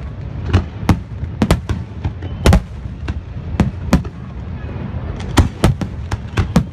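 Fireworks shells bursting in quick, irregular succession: more than a dozen sharp bangs, some in close clusters, over a continuous low rumble.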